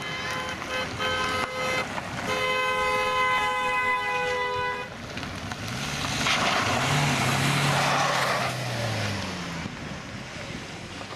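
Wedding convoy car horns honking: about four short toots, then one long two-note blast. About six seconds in, a car drives past close by, its engine note and tyre noise swelling and fading.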